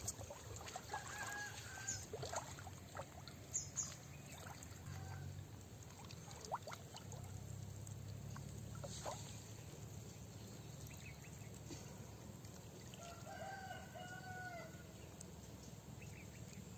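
Water splashing and dribbling in small irregular bursts, with chickens calling in the background and a rooster crowing near the end.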